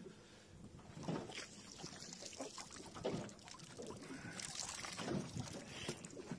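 Wet trammel net being hauled by hand over the side of a small boat: water dripping and splashing off the mesh and line in irregular surges.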